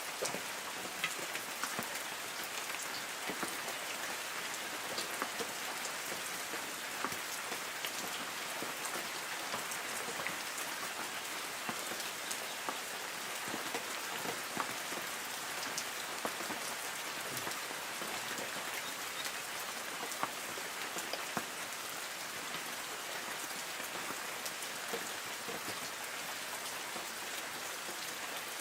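Light rain falling on forest trees: a steady, even hiss with the scattered taps of single drops landing on leaves.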